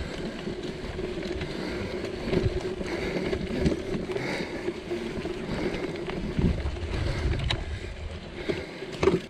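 Mountain bike ridden fast over a dirt forest trail: continuous tyre rumble and rattle of the bike, with a steady hum and sharp knocks now and then as it goes over bumps and roots.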